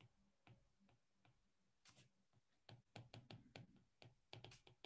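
Faint quick taps and clicks of a stylus pen on a tablet screen during handwriting, a scattered few at first, then a close run of them in the second half.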